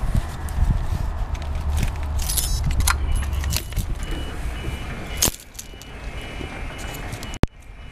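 Cement mixer truck rumbling alongside at very close range, with rattling. The heavy low rumble drops away about five seconds in, leaving a quieter hum with a faint repeated high beep, and a sharp click near the end.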